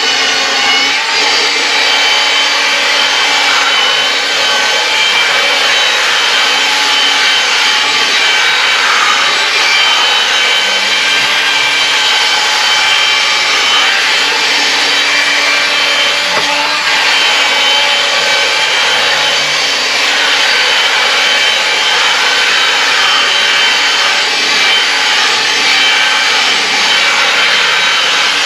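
A small electric motor runs steadily with a whine.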